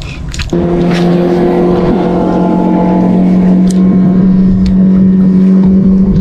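Motorboat engine droning at a steady pitch, starting abruptly about half a second in.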